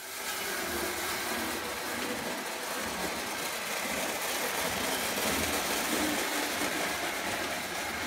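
Prewar Lionel O gauge electric locomotive running on three-rail tinplate track: a steady rumble of motor, gears and wheels on the rails, with a low hum.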